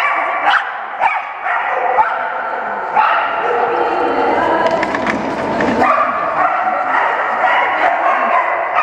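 A Belgian shepherd-type dog barking and yipping excitedly over and over as it runs an agility course.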